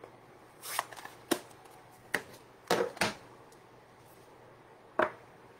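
Clear acrylic stamp block with a rubber leaf stamp being handled and moved on a craft mat: about six short clicks and taps at uneven intervals.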